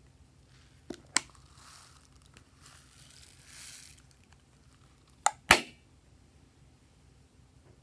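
Glossy slime being worked by hand: soft sticky squishing and stretching, with two pairs of sharp clicking pops, the loudest about five and a half seconds in.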